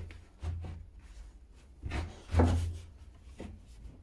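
Sawn wooden panels being handled and set down on a workbench: a few dull wooden knocks and scrapes, the loudest about halfway through.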